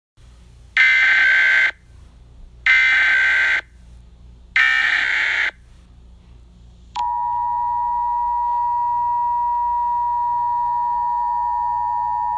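Emergency Alert System signal: three buzzy SAME header data bursts, each about a second long and about a second apart, over a low hum. About seven seconds in, the steady two-tone EAS attention signal starts and holds.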